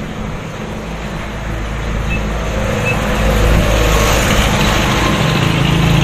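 An engine running steadily with a low rumble, getting louder through the second half.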